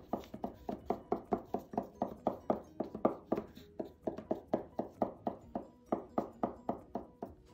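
Permanent marker tips tapping dots onto paper: quick, uneven taps, about four or five a second, from two markers going at once. The taps stop just before the end.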